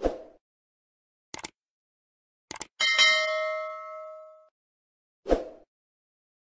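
A few sharp clicks, then a bell-like ding about three seconds in that rings out and fades over about a second and a half, and a dull thump near the end.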